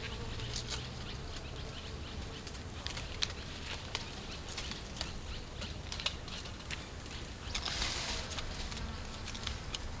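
Quiet outdoor ambience: scattered small clicks and rustles over a low steady background, with a brief hissing rustle about eight seconds in.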